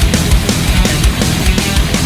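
Loud heavy rock music with a fast, driving drum beat.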